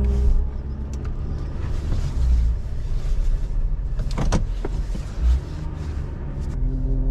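Duramax diesel engine of a GMC tow truck running steadily, heard from inside the cab while the truck is driven, with a short clicking rattle about four seconds in.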